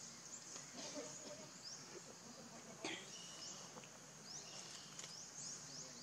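Faint forest ambience: insects droning steadily at a high pitch, with many short rising chirps repeating over them. A sharp click sounds just before three seconds in, followed by a brief whistle-like tone.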